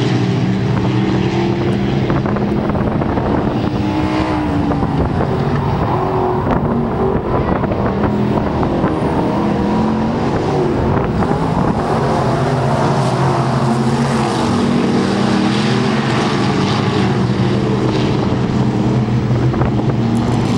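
Several dirt-track race cars running laps together, their engines loud and continuous, with the pitch rising and falling as the cars accelerate down the straights and lift into the turns.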